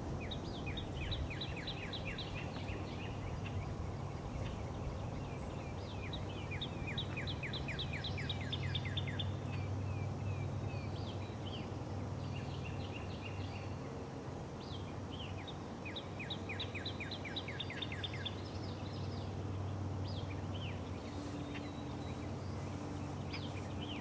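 Songbirds singing in repeated fast trills of short down-slurred notes, each phrase lasting one to three seconds, over a steady low hum.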